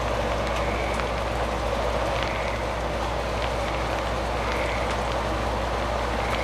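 Steady rain falling, an even hiss with faint drop ticks, over a low steady hum.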